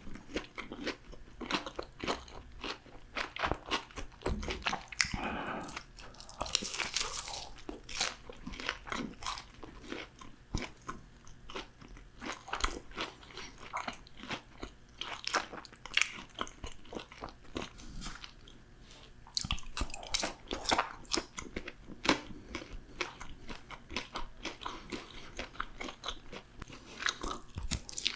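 Close-miked biting and chewing of crispy fried food, a dense run of sharp crunches and crackles that eases off briefly about two-thirds of the way through.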